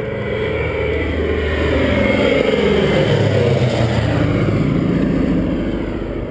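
A DC-3's twin radial piston engines droning as the aircraft passes low overhead: the sound grows louder as it approaches, peaks as it crosses over, and drops in pitch as it moves away.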